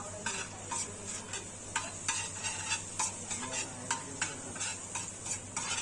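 Metal spatula scraping and tapping on a hot griddle in quick, irregular strokes, several a second, over a steady sizzling hiss.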